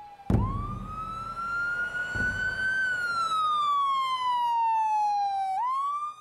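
Emergency vehicle's siren wailing: the pitch rises, falls slowly, then sweeps up again near the end. Low rumbling bursts come just after the start and about two seconds in.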